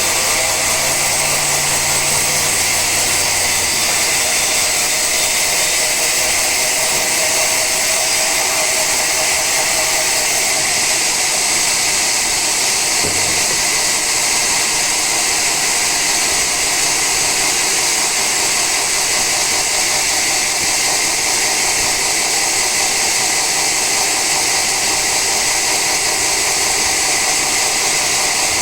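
Sawmill saw cutting through a log of old teak: a loud, steady, high-pitched hiss of the blade in the wood with a steady motor whine underneath.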